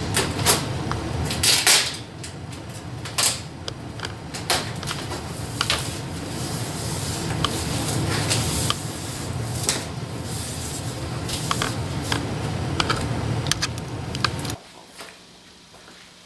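A cardboard TV box and its packing being opened and handled, with scattered knocks, clicks and rustling. A steady low hum underneath stops abruptly near the end.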